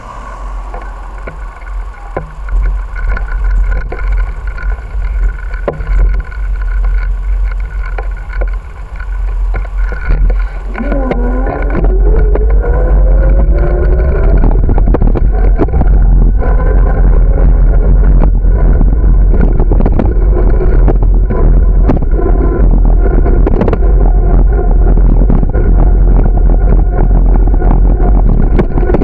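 Wind buffeting the microphone and the rattle and jolts of a moving bicycle on rough, patched asphalt. It grows louder about twelve seconds in as the ride picks up speed. Around then a rising whine glides up for a few seconds.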